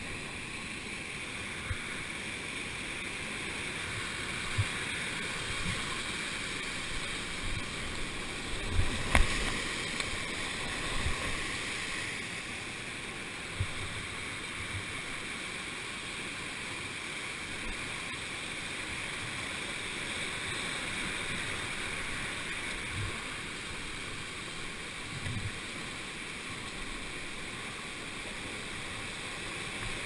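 Whitewater of a waterfall and rapids rushing steadily around a solo canoe, with scattered low thumps, the loudest about nine seconds in.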